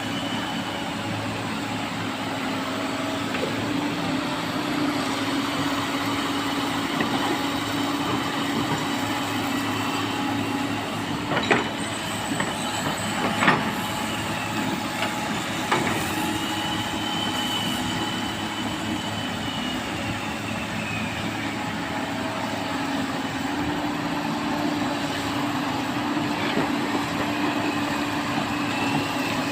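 Komatsu excavator's diesel engine running steadily under working load, with a high whine that rises and falls in slow sweeps and three sharp metal clanks around the middle.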